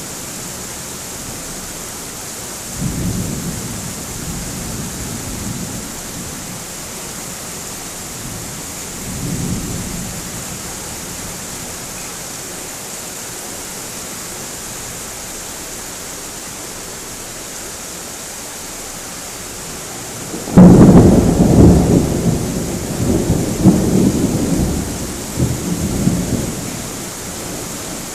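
Thunderstorm: steady rain hiss with two low rolls of distant thunder in the first ten seconds, then a loud, sudden thunderclap about two-thirds of the way in that rumbles on in several rolls for about six seconds.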